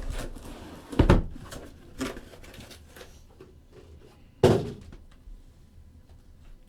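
Thumps and knocks of a sealed cardboard case of trading card boxes being handled on a table: two loud thumps, about a second in and again about four and a half seconds in, with lighter knocks and handling noise between.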